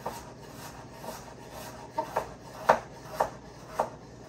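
Knife chopping on a cutting board: a handful of sharp, unevenly spaced chops, the loudest a little after halfway.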